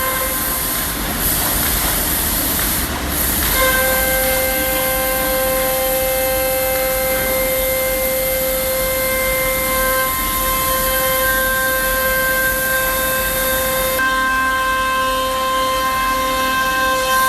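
CNC router spindle running at speed, a steady high whine, while the router cuts plywood with a rushing noise. About half a second in the whine drops out, leaving the noise alone for roughly three seconds, then it comes back and holds steady.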